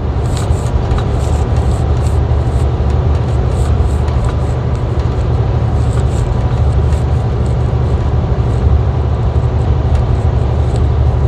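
Inside a semi-truck cab at highway speed: a loud, steady low drone of engine and road noise, with faint irregular light ticks over it.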